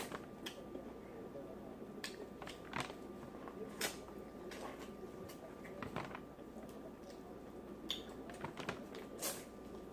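Close-up mouth sounds of a person eating seafood boil: wet smacking and chewing, with irregular sharp clicks.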